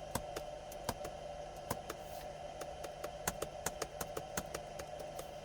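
Computer keyboard being typed on: short, irregular key clicks, several a second, over a steady hum.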